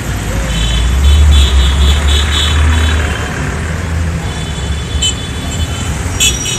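Busy street traffic: a heavy vehicle's engine rumbles close by, loudest in the first half. Over it come repeated short, high-pitched horn toots.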